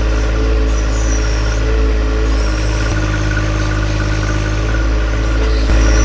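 John Deere 1025R compact tractor's three-cylinder diesel engine running steadily while its backhoe digs a trench and lifts a bucket of dirt. The engine gets a little louder near the end.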